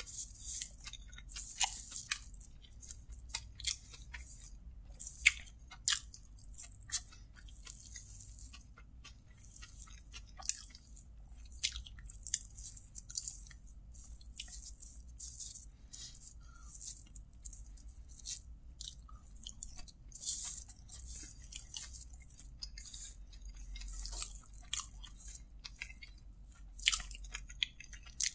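Close-miked eating by hand: chewing, and the crinkle of fingers scraping and gathering kottu roti on a plastic-lined paper food wrapper, heard as irregular sharp crackles and clicks.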